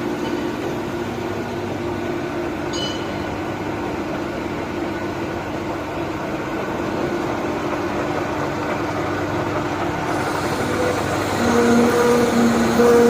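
Metal lathe running with a steady hum. A brief high squeak comes about three seconds in, and near the end a second tone joins and the sound grows louder.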